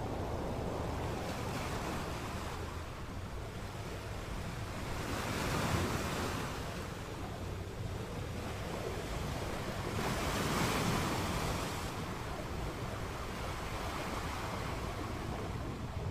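Sea surf washing onto the beach in a steady rush, with two bigger waves swelling up about five and ten seconds in, and wind blowing.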